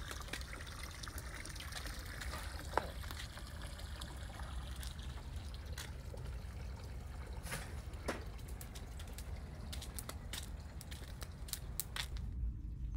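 Wood fire crackling in an outdoor fire pit, with scattered sharp pops that come more often in the second half, over a steady low rumble.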